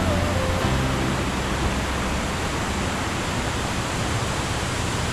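Iguazu Falls, a steady roar of falling water.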